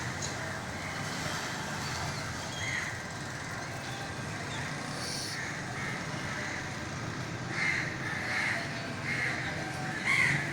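Birds giving short, repeated calls, the loudest near the end, over a steady low rumble.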